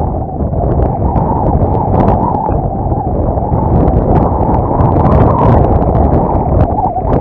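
Strong wind buffeting the microphone, with the crackle of gusts. Behind it, the 35cc NGH single-cylinder two-stroke gas engine of a large RC plane drones in flight, its pitch wavering up and down as the plane passes.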